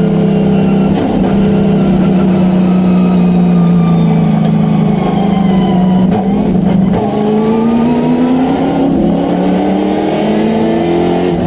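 Race-car engine of a VK Commodore sports sedan, heard from inside the cabin. Its pitch falls for the first six seconds or so as the car slows for a corner, then after a brief dip it rises steadily as the car accelerates hard out of the corner.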